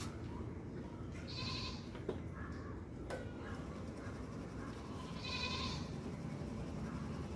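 Goat bleating twice, short wavering calls about a second and a half in and again about five and a half seconds in, over a steady low background noise.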